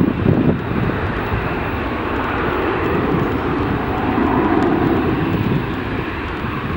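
Jet airliner engines rumbling as a plane passes, swelling slightly midway and easing off near the end, with wind buffeting the microphone.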